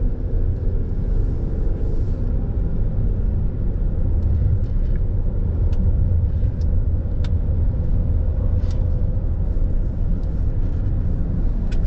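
Steady low rumble of road and engine noise inside a 1996 Buick Regal's cabin as it cruises, with a few faint clicks.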